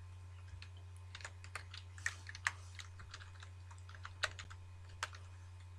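Computer keyboard typing: scattered, irregular keystrokes, a few louder than the rest, over a steady low hum.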